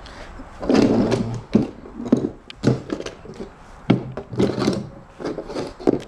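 Irregular knocks and clicks of tools and metal parts being handled on a manual transmission case while working a small detent ball out of its bore.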